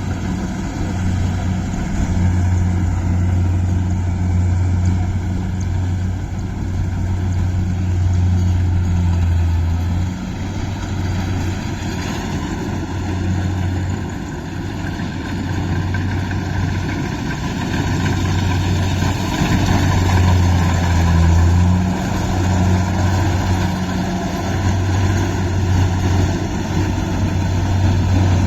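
Kubota combine harvester running steadily while cutting rice: its diesel engine and machinery make a continuous low drone that swells and eases slightly now and then.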